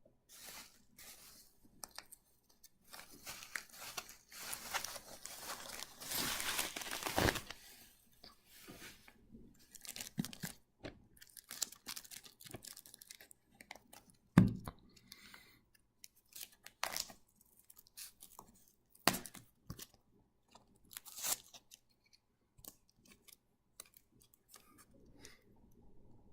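Crinkling and rustling as comic books are handled and shuffled, heaviest in the first several seconds, with a dull thump about fourteen seconds in, as of a comic being set down.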